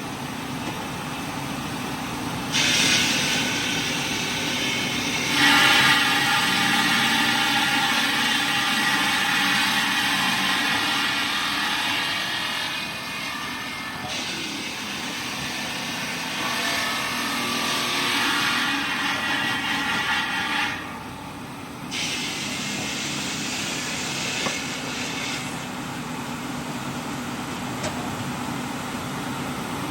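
Heavy machinery running, with a loud hiss that switches on and off in stretches of several seconds.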